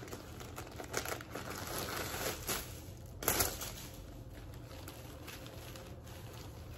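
Thin plastic clothing packaging crinkling and rustling as a bag is opened and a garment is pulled out. The rustling comes in bursts over the first three and a half seconds, loudest about three seconds in, then goes on more quietly.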